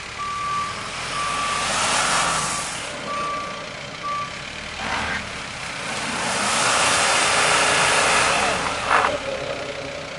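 Small flatbed truck's reversing alarm beeping, one steady tone about once a second, stopping about four seconds in. A rushing noise swells twice under it.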